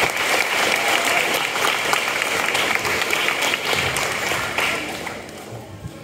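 Audience applause, many hands clapping together, tapering off about five seconds in.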